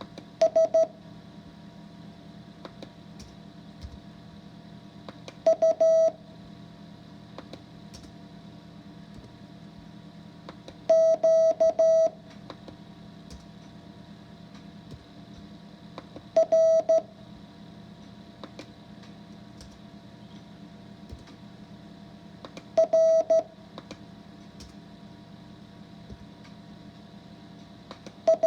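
Morse code practice tone: short groups of dots and dashes beeped at one steady pitch, six groups in all, each followed by a pause of about five seconds for copying, over a low steady hum.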